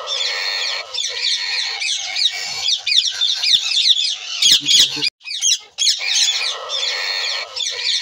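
Many small birds chirping and twittering in a dense run of quick, high, falling chirps, with no low sounds underneath. The sound drops out briefly about five seconds in, then starts over with the same passage, like a looped birdsong recording.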